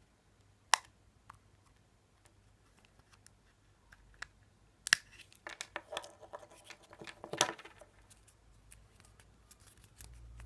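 A Kinder Surprise egg being opened by hand: a sharp crack about a second in, then a run of clicks and crinkly plastic rustling around the middle as the shell is broken and the plastic toy capsule is pried open.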